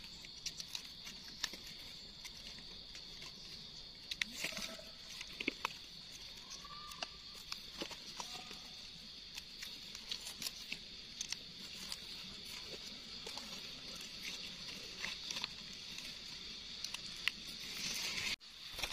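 Faint rustling and crackling of dry leaf litter, with small clicks and snaps as a knife cuts mushrooms from the ground and hands handle them, over a steady high-pitched background buzz.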